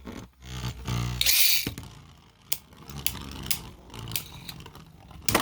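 Beyblade spinning tops whirring and clashing in a stadium: a loud grinding whir in the first second and a half, then scattered sharp clicks of the tops striking each other and the stadium wall, ending in a burst of hard hits near the end that knocks one top out.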